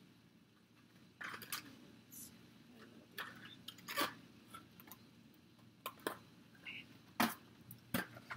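Scattered light clicks and rustles of small cardboard medication boxes and packaged injection supplies being handled and sorted by hand.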